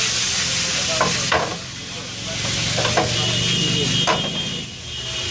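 Penne in tomato sauce sizzling in a frying pan over a gas flame as it is stir-fried. A wooden spatula scrapes and knocks against the pan about three times.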